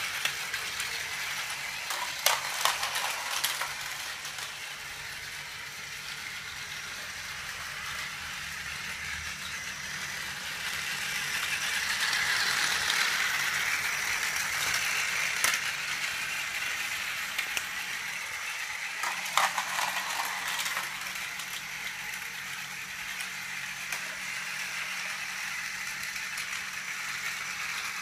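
Battery-powered Plarail E5 series Shinkansen Hayabusa toy train running on plastic track: a steady whirring motor and rattling wheels, getting louder for a few seconds around the middle, with a few sharp clicks near the start and again about two-thirds through.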